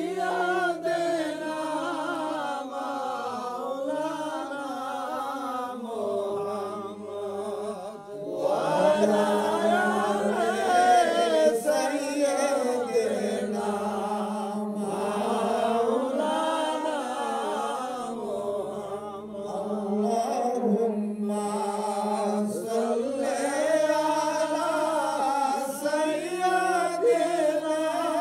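Male voices chanting a devotional Islamic invocation in long, drawn-out, wavering phrases. It dips briefly about eight seconds in, then comes back louder.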